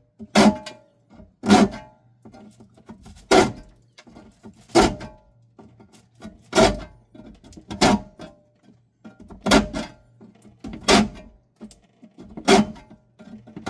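A series of about nine sharp knocks at a slow, uneven pace, roughly one every one to two seconds, each followed by a short ringing tone, over a faint steady hum.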